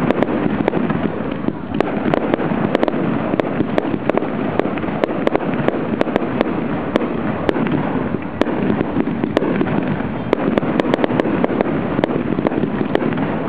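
Aerial fireworks display: a constant rumble of launches and shell bursts overlaid with dense, rapid crackling, getting thicker about ten seconds in.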